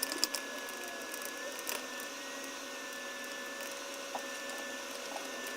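A few light clicks and taps of a small screwdriver and plastic drone parts being handled, most of them in the first half second. Under them runs a faint steady hiss with a thin high whine.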